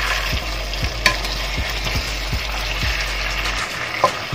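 Pork and vegetables sizzling steadily in a stone-coated pan while a wooden spatula stirs them. The spatula knocks sharply against the pan about a second in and again near the end.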